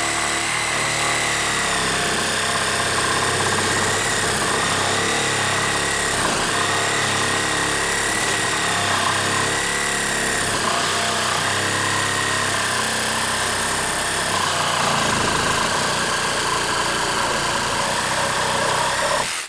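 DeWalt 12V Xtreme cordless one-handed reciprocating saw (hacksaw) with a wood blade, cutting through a 2x4 under load. Its motor pitch dips and recovers as the blade bites into the wood, and the saw stops at the end as the cut finishes.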